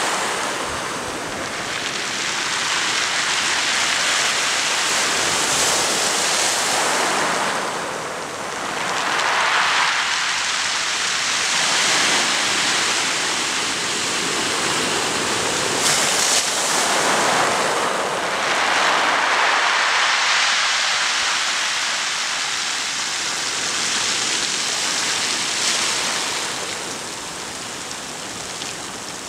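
Small sea waves washing up onto a pebble beach and drawing back: a steady surf hiss that swells and eases every few seconds.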